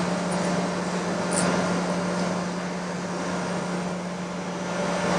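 Surface grinder running without cutting: a steady low hum over an even rushing noise, with a few faint light clicks near the start.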